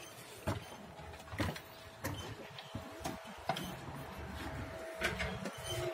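Irregular light knocks and scrapes of plastering work on scaffolding, about half a dozen in a few seconds, over a faint steady hum.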